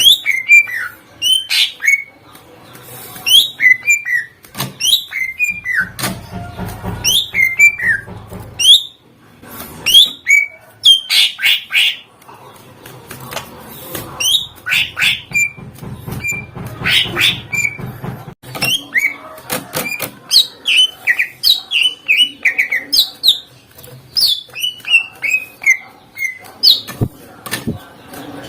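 Greater green leafbird (cucak ijo) singing a loud, fast string of sharp whistled notes, many sweeping steeply downward, its song filled with phrases mimicked from other birds.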